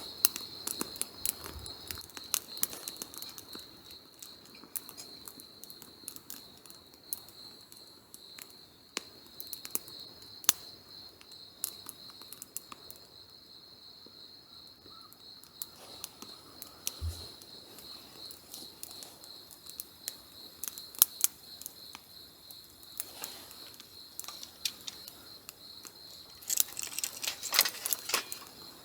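Wood campfire crackling, with scattered sharp pops that come thicker and louder near the end. Insects chirr steadily at one high pitch throughout.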